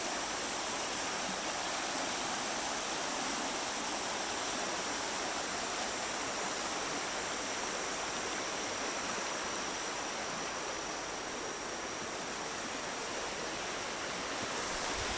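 Running water rushing steadily, with a thin, steady high tone above it.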